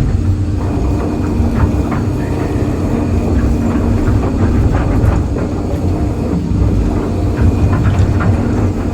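Excavator's diesel engine running steadily with scattered clanks and knocks of the machine at work.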